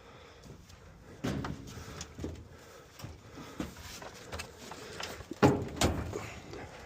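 Scrap metal being shifted and loaded onto a trailer: scattered clunks and scrapes, the loudest two knocks coming close together about five and a half seconds in.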